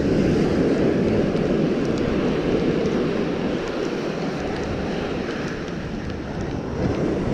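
Steady wind noise buffeting the microphone over the wash of breaking surf.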